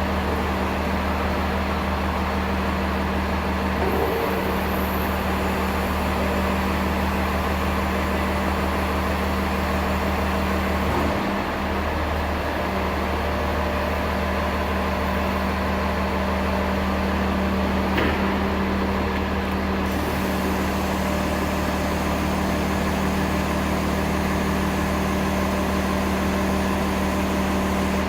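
Case 590 Super M backhoe's diesel engine running steadily, with a few faint knocks over the top.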